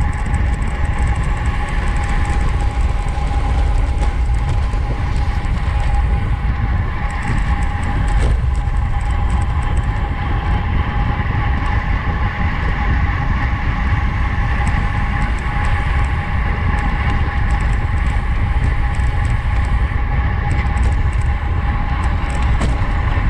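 Wind rushing over the microphone of a camera riding with a racing bicycle at speed: a heavy, steady rumble, with a steady whine from the bike's drivetrain and tyres on top.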